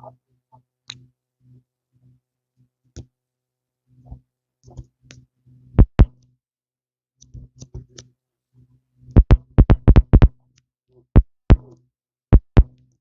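Irregular sharp clicks and taps: a pair about 6 s in, then a quick run of them from about 9 to 10 s, and a few more near the end. A low hum comes and goes beneath them.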